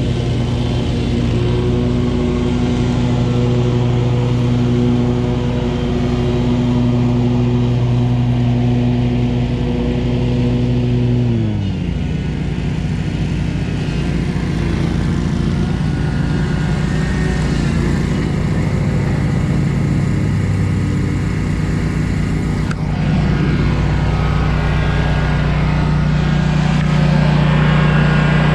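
Engine of a 2019 Scag V-Ride 2 stand-on commercial mower running steadily while mowing. About twelve seconds in, the engine note slides down to a lower pitch and holds there.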